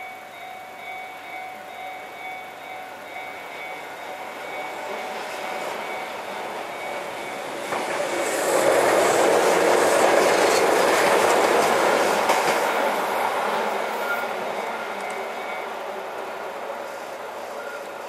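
Electronic level-crossing warning bell dinging repeatedly while a Keihan 600-series train passes over the crossing. The train's running noise swells to its loudest about eight to thirteen seconds in, then fades, and the bell stops about sixteen seconds in.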